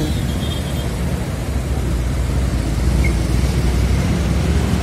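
Steady low rumble of road traffic and a moving motorcycle, heard from the pillion seat while riding through traffic.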